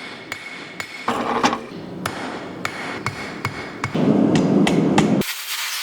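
Blacksmith's hammer striking steel on an anvil, a string of sharp blows about one or two a second. A louder rushing noise comes in about four seconds in, and gives way to a high hiss near the end.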